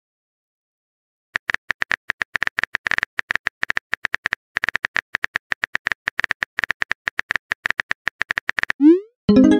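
A rapid, uneven run of short high-pitched electronic clicks, about ten a second, starting a second or so in, like a text-typing sound effect. Near the end a short rising pop sounds.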